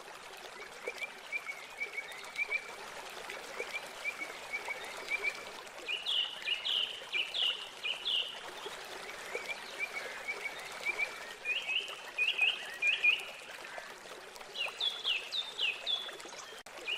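Birds chirping in repeated short phrases of quick, falling notes over a steady trickle of running water.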